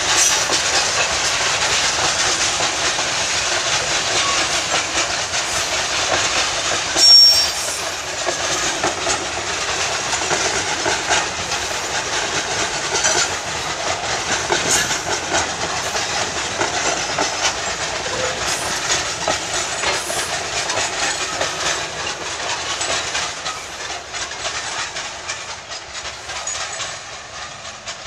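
Freight train wagons rolling past on steel wheels, clicking over the rail joints over a steady rumble and hiss, with one brief louder metallic burst about seven seconds in. The sound fades near the end as the last car moves away.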